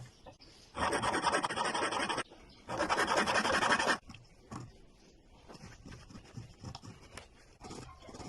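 Two long scraping strokes, each over a second, then fainter scattered ticks and taps.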